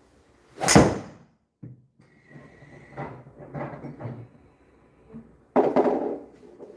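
Golf club striking a ball at an indoor simulator range: one loud, sharp crack about a second in, then softer clunks and a second loud knock near the end.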